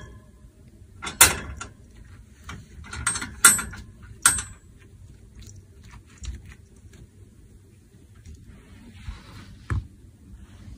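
Wire pet cage rattling and clanking as a cat paws at its bars and pushes its way in: a scatter of sharp metal clicks, loudest about a second in and again around three and a half and four seconds in.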